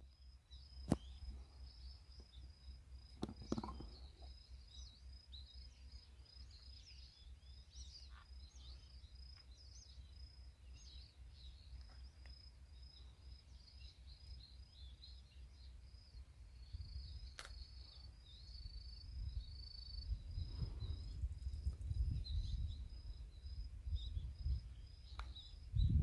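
Countryside ambience: a steady run of short, high-pitched chirps from small birds or insects, over a low wind rumble on the microphone that grows louder in the second half, with a couple of sharp clicks.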